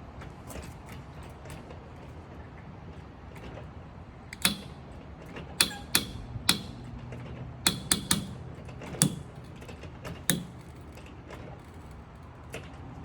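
Hydraulic slips of a coil tubing slip connector setting and clamping onto the coil tubing under pressure: a series of sharp metallic clicks, about nine irregular ones from a third of the way in to past the three-quarter mark, over a steady low hum.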